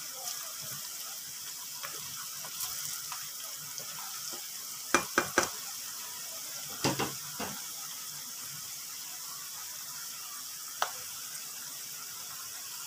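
Sliced onions frying in hot oil in a wok as they are browned, a steady high sizzle. A few sharp clicks stand out around the middle, a cluster of three then two more, and one near the end.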